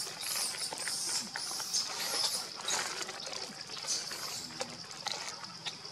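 Steady high drone of insects in the trees, with scattered light clicks and rustles.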